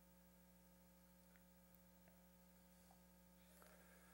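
Near silence: a faint, steady electrical hum in the room's sound system, with a faint rustle near the end.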